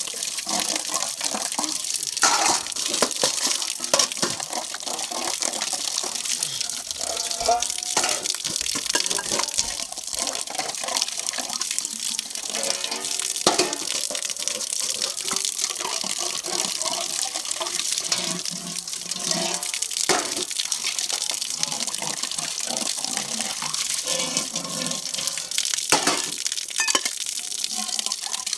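Water pouring from an outdoor tap and splashing onto concrete as metal dishes are rinsed under it, with the plates and bowls clinking against each other and the ground several times.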